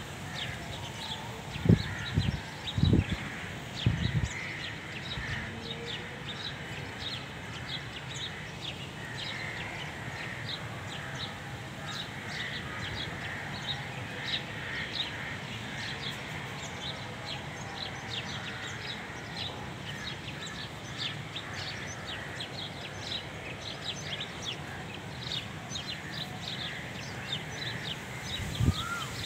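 Many small birds chirping, with a few low thumps in the first four seconds.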